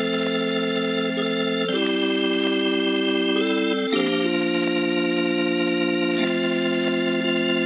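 Background music: sustained organ chords, held steady and changing to a new chord every two seconds or so.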